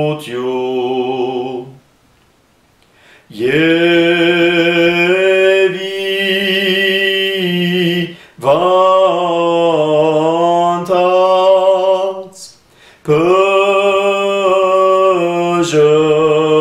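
A man's voice chanting a slow Armenian church prayer, holding long notes in phrases broken by short pauses.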